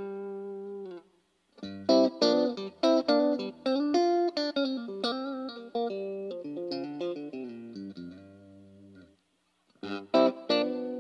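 Tokai Super Edition SD-65s electric guitar being played: a chord rings and fades out, then after a short pause a run of picked notes and chords that dies away, with playing starting again near the end.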